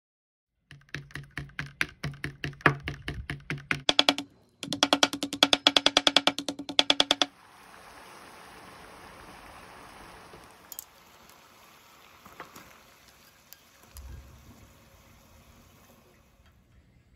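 Rapid, even clicking about five times a second with a steady tone under it for the first several seconds. Then a pot of water at a rolling boil bubbling steadily, with a couple of light clicks and a low thump near the end.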